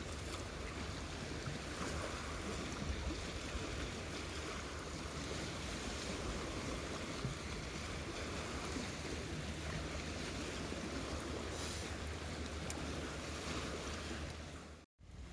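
Steady outdoor wind and water noise with a low rumble, and a few faint ticks.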